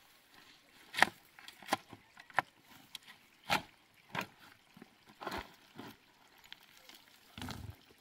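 A series of irregular sharp knocks and slaps, roughly one a second, the loudest about a second in, with a duller, heavier thud near the end.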